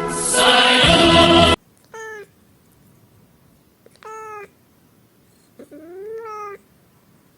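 A burst of brassy music cuts off about a second and a half in. It is followed by a cat meowing three times: two short meows about two seconds apart, then a longer meow that rises and falls in pitch.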